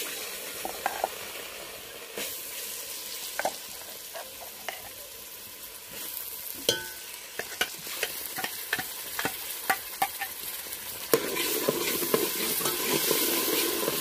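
Masala paste sizzling and frying in hot oil in a metal pot, with a steady hiss. A steel ladle and a pouring bowl click and scrape against the pot as the paste is added and stirred. The sizzle grows louder near the end.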